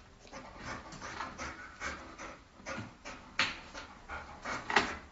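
Golden retriever panting, about two breaths a second, the loudest near the end.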